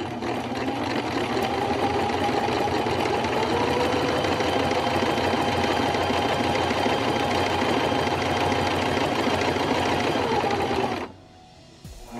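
Janome electric sewing machine running steadily as it stitches a buttonhole under its buttonhole foot, then stopping abruptly about eleven seconds in.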